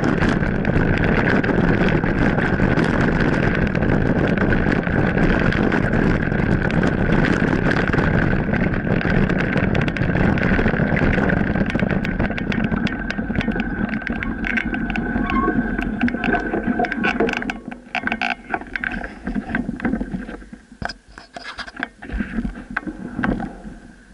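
Mountain bike rolling fast down a gravel road: steady wind noise on the microphone and tyre rumble, with a constant high whine over it. About seventeen seconds in the bike slows and stops, and the roar gives way to scattered crunches and clicks on the gravel.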